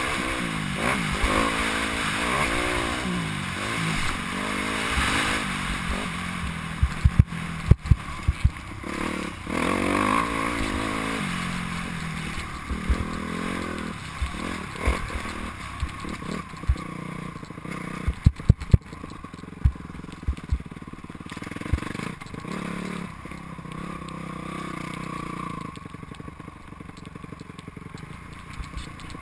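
Motocross bike engine revving up and down as it is ridden over a dirt track, heard from a helmet camera. Clusters of sharp knocks come about seven seconds in and again around eighteen seconds in, and the engine is quieter in the last third.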